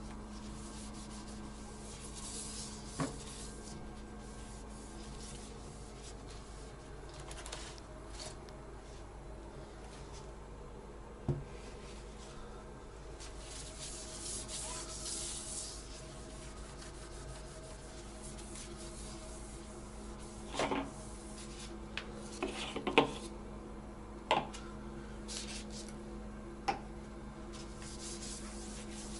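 Damp towel wiping and rubbing along a smooth ledge above a toilet tank, a soft scrubbing swish with a few light knocks and taps, the busiest stretch about two-thirds of the way through. A steady low hum runs underneath.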